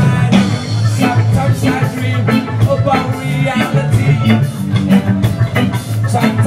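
A live reggae band playing: electric guitars, bass and drum kit on a steady off-beat groove, with a singer's voice over it.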